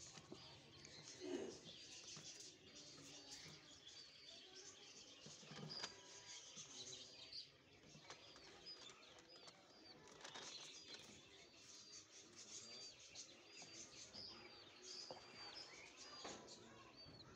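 Faint bird chirping: short, high chirps repeated about twice a second, with a few faint clicks.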